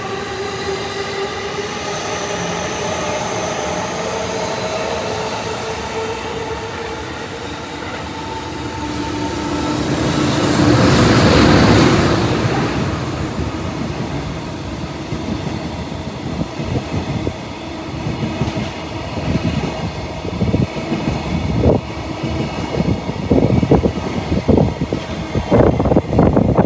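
A JR Freight EH500 electric locomotive passes at speed, loudest about ten to thirteen seconds in, after a steady hum with several whining tones. Then the wheels of a rake of empty flat wagons clack over the rail joints, the clacks coming thicker and louder toward the end as the last wagons go by.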